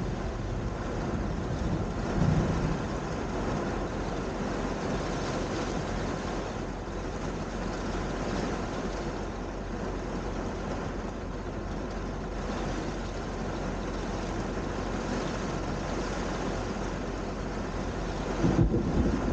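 Heavy rain falling steadily in a thunderstorm, with a louder low rumble of thunder starting near the end.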